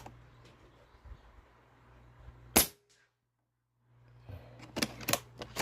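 Snowpeak T-Rex .22 PCP air rifle firing one sharp shot about two and a half seconds in, then a few quieter clicks near the end.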